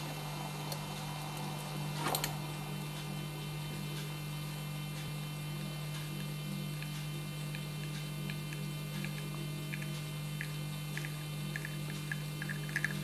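Steady electrical mains hum, with a single sharp click about two seconds in. Near the end, faint ticks grow more frequent as espresso begins to drip from a bottomless portafilter on a lever espresso machine.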